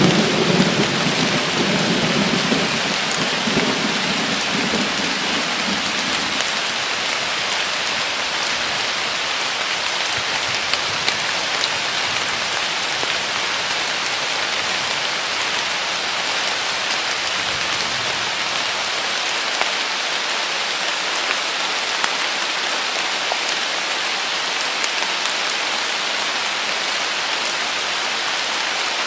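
Heavy rain pouring steadily, a dense even hiss. A low rumble of thunder dies away over the first few seconds.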